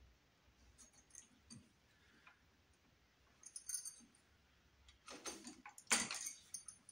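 A screwdriver working on a wall switch's terminal screws, with the switch handled in the hand: faint small clicks and scrapes, then a louder run of scraping clicks about five seconds in.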